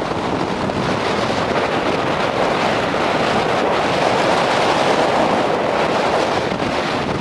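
Strong wind buffeting the microphone over rough surf breaking on the shore, a loud, steady rush that swells a little in the middle.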